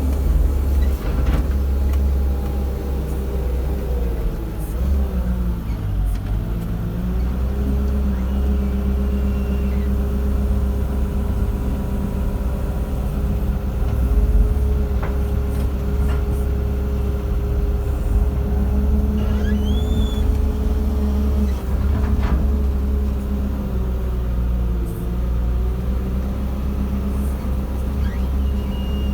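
Heavy diesel engine of a JCB JS160 excavator running steadily while it works. Its pitch sags briefly under hydraulic load about five seconds in and again near the end, then recovers. A few faint knocks are heard over it.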